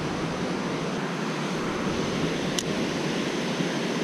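Steady rush of river water pouring over a low mill dam, with a single light click about two and a half seconds in.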